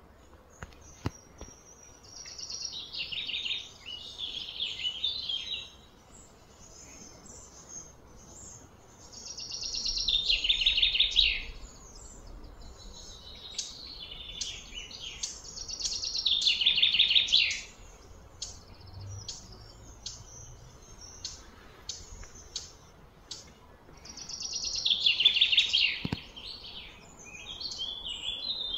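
A songbird singing: four loud, high trilled phrases of about two seconds each, spaced roughly six to eight seconds apart, with short chirps in between.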